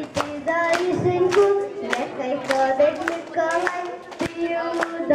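Rhythmic hand clapping, about two claps a second, keeping time over a song's melody.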